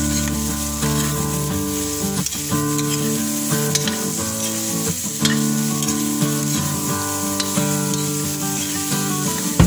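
Shredded cabbage and carrots sizzling in a hot wok as they are stir-fried, with a utensil knocking against the pan now and then. Background music with a steady run of notes plays over it.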